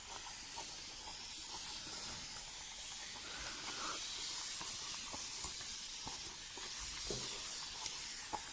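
Water spraying steadily from a handheld salon shower sprayer, wetting hair and scalp before shampooing, with faint drips and splashes.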